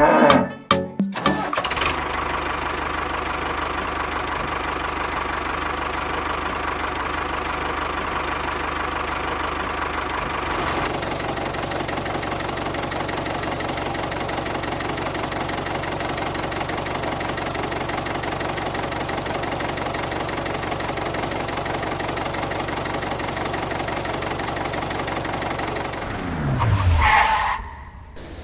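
A small engine or motor running steadily, with a brief drop in pitch near the end as it winds down.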